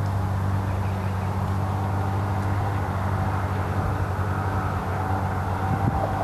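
A motor vehicle running at a steady speed: an even, low engine and road drone that does not change.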